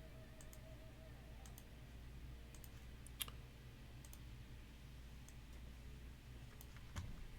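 A few faint, scattered clicks over a quiet room hum, one a little louder about three seconds in.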